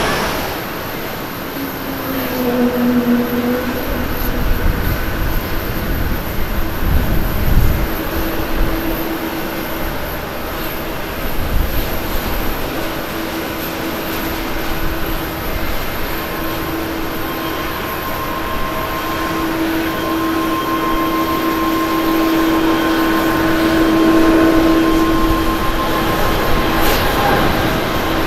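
Boeing 777-300ER's GE90 turbofan engines at takeoff power during the takeoff roll: a steady rumble with a humming engine tone. A higher whine joins partway through, and the noise grows louder as the airliner accelerates toward rotation.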